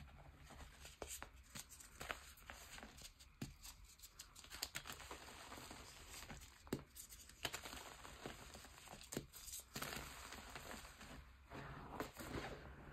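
Hands crushing and crumbling pressed gym chalk chunks into loose chalk powder: irregular soft crunches and snaps over a dry, powdery crackle.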